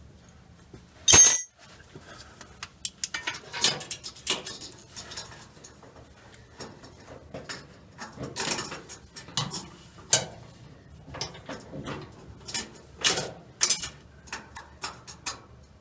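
Metal tools and parts being handled: one loud metallic clang about a second in, then scattered clinks, clicks and knocks.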